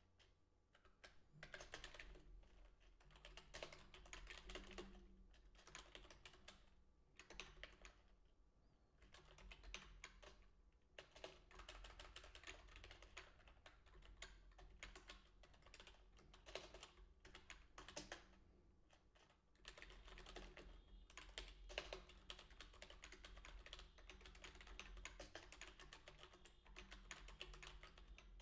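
Faint typing on a computer keyboard, with runs of fast key clicks broken by short pauses.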